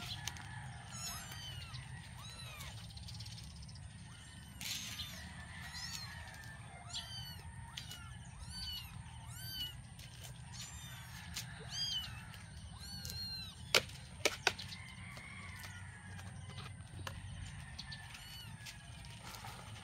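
Hungry young kittens mewing over and over in short, high-pitched cries. A couple of sharp clicks stand out about two-thirds of the way through.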